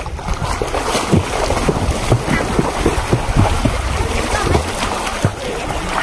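Water splashing and sloshing as a child swims off, with wind rumbling on the microphone.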